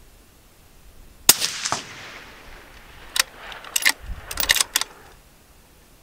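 A single shot from a suppressed Ruger American Gen II .223 Rem bolt-action rifle about a second in, a sharp crack trailing off in echo. A quick run of sharp metallic clicks follows a couple of seconds later as the bolt is worked.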